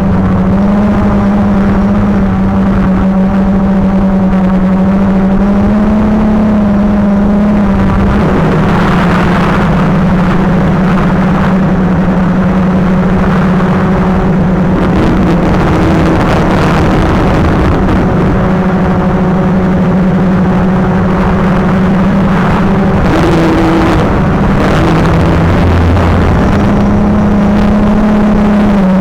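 Quadcopter drone's electric motors and propellers in flight: a loud, steady whine whose pitch drifts slightly up and down with the throttle, with spells of rushing noise in the middle.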